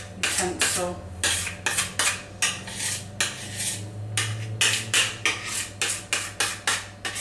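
A kitchen utensil repeatedly scraping and knocking against a mixing bowl, about two strokes a second, as cheesecake filling is scraped out of the bowl.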